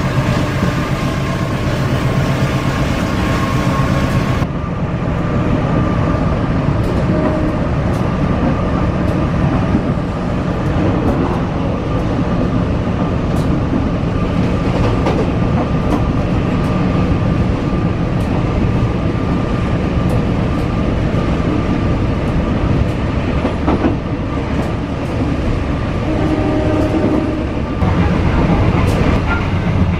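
Passenger train running along the track: a steady rumble of wheels on rails, with scattered clicks over the rail joints. A high hiss cuts off abruptly about four seconds in.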